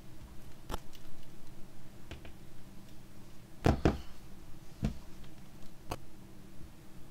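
Light knocks and clicks of a laptop's plastic case being handled and lifted off a table, about six in all, the loudest a quick double knock near the middle.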